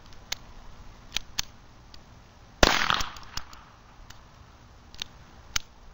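A single shot from a Beretta 21A .22 LR pistol about two and a half seconds in, with a short echo. Several lighter sharp clicks come before and after it.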